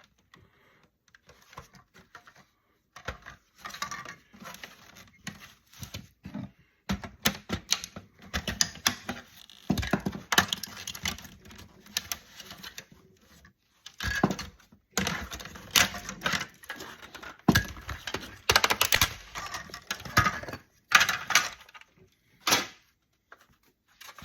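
Hand tools and fingers working apart a plastic-cased electronic unit: irregular clicks, snaps and rattles of plastic and small metal parts, sparse at first and busier from about a third of the way in.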